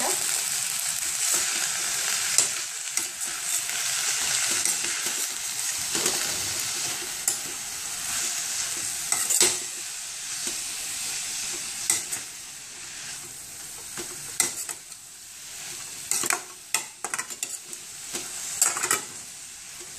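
Chopped fresh fenugreek leaves sizzling in hot oil in a stainless steel kadhai while a steel spoon stirs them, clicking and scraping against the pan many times. The sizzle is loudest at first and dies down over the second half.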